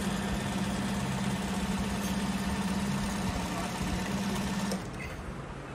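JAGKING 5330D direct-drive industrial sewing machine running steadily as it stitches a black strip, with a steady motor hum. It stops about five seconds in.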